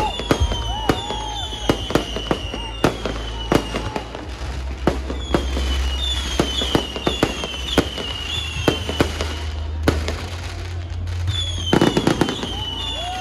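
Fireworks going off in quick succession: sharp bangs and crackles, with a string of short whistles that dip in pitch, over a steady low rumble. The bangs come thickest near the end.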